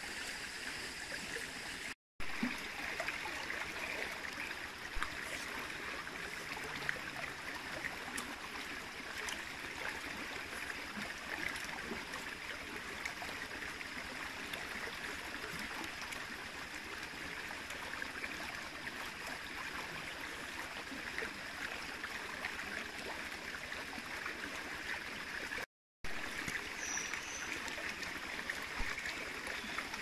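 A stream flowing steadily, an even rushing and gurgling of water, broken by two brief moments of total silence, one near the start and one near the end.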